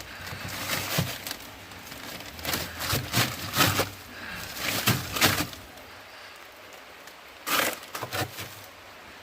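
Irregular knocks, cracks and rustling: something being handled, with a cluster of knocks near the end.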